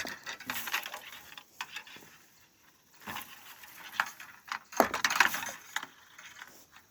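Irregular rattling, rustling and clicking from fishing gear being handled close by, in short bunches with quiet gaps, the busiest about five seconds in.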